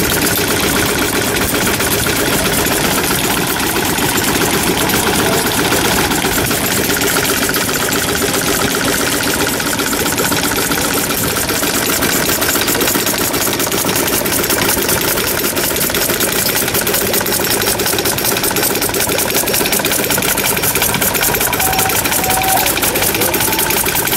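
Several antique engines running together at once, a loud steady overlapping mechanical clatter with no pause.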